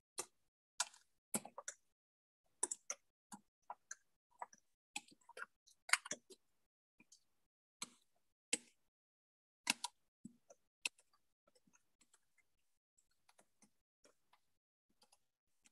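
Irregular clicks of a computer mouse and keyboard, single sharp ticks spaced unevenly, growing fainter after about eleven seconds.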